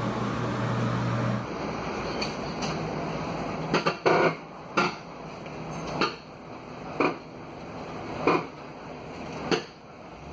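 A steady low hum that cuts off suddenly, then a run of sharp clanks, roughly one a second, inside a moving bus.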